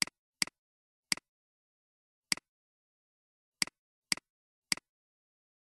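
Mouse button clicks, seven in all at uneven spacing, each a sharp press followed at once by a softer release, with dead silence between.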